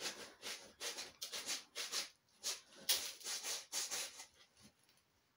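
Cat digging in a plastic litter box, its paws raking through granular litter in a quick run of scratchy scraping strokes, about two to three a second, that stop about four and a half seconds in.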